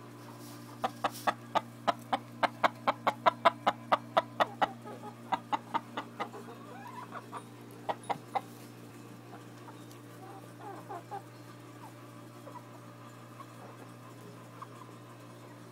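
Chickens making a rapid, even run of short, sharp clucks at about four a second for some five seconds, then three more near eight seconds in, with a few soft calls later.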